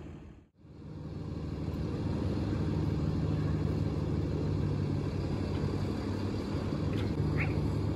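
Boom truck's engine running at a steady speed, powering the GIUFFRE crane while its hook is lowered on the cable. The sound cuts out briefly about half a second in, then resumes steadily. A couple of short high chirps come near the end.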